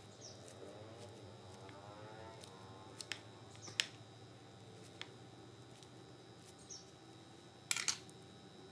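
Metal spatula pressing through a tofu omelette and tapping the wooden plate beneath: a few scattered clicks and taps, the loudest about four seconds in and a quick cluster near the end.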